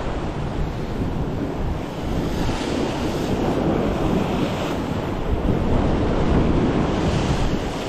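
Sea waves washing against a rocky shoreline, swelling twice into louder hissing surges, with wind rumbling on the microphone.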